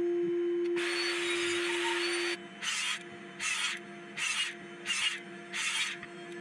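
Rhythmic hand rubbing across a plywood board: one long rasping stroke, then a run of short strokes about three-quarters of a second apart, over a steady hum.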